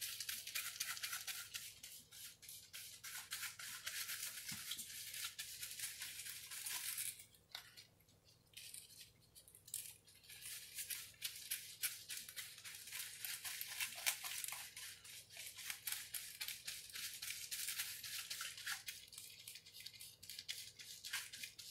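Aluminium foil highlighting packets crinkling as gloved hands fold and press them against the head: a faint, dense crackle of fine clicks, with a short break about seven seconds in.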